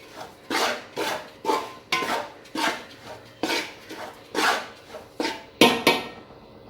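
A utensil scraping and stirring rice flour being dry-roasted in a pan, in quick rhythmic strokes about two a second that stop about six seconds in.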